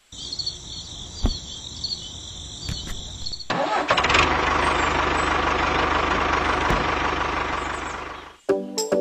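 Tractor engine sound starting about a third of the way in and running steadily with a fast low chug, then fading out near the end. Before it there is a faint high, wavering whir.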